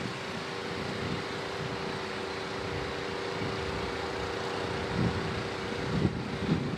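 Outdoor wind noise: a steady rushing hiss with low gusts buffeting the microphone about five and six seconds in, over a faint steady hum.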